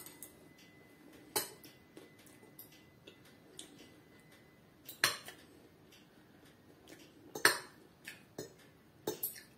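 Spoon and fork clinking against a plate now and then: a handful of short, sharp clicks several seconds apart, the loudest about three-quarters of the way through.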